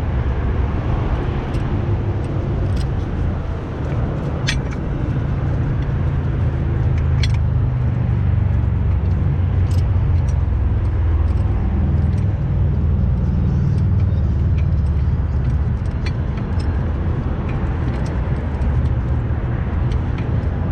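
Wind buffeting the microphone, a steady low rumble, with scattered light metallic clicks and clinks of tools being handled.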